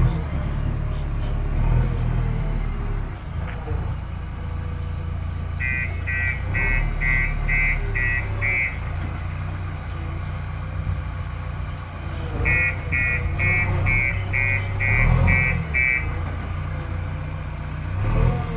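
JCB 3DX backhoe loader's diesel engine running under working load, with its reversing alarm beeping in two runs of rapid, evenly spaced beeps, about two a second, as the machine backs up.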